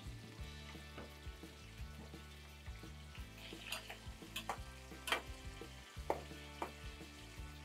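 Hot oil sizzling steadily as cubed eggplant deep-fries. From about halfway, a slotted spoon stirs the eggplant, clicking lightly against the pot several times.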